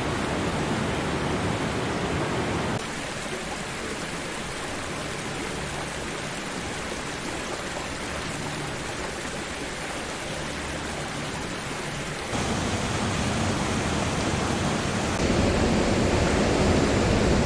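Steady rush of flowing floodwater, its loudness and tone changing abruptly about three, twelve and fifteen seconds in.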